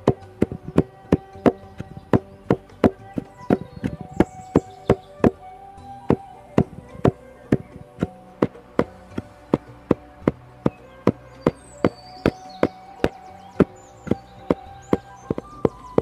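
A long wooden pestle pounding down into a mortar in a steady rhythm, a little over two knocks a second.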